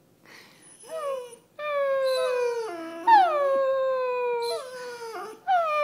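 Basset hound howling: a run of drawn-out howls that each slide down in pitch, the loudest breaking sharply upward about three seconds in before falling again. A new howl starts near the end.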